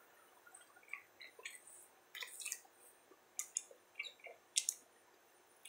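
A person chewing a mouthful of pizza sub, heard as faint, scattered wet smacks and clicks of the mouth, a little louder about four and a half seconds in.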